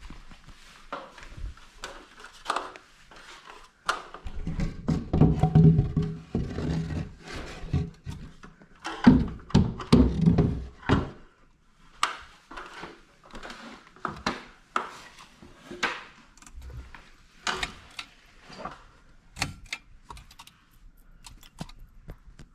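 Irregular knocks and thunks of a person moving about and handling things in a small space, heavier and louder for a few seconds about four and nine seconds in.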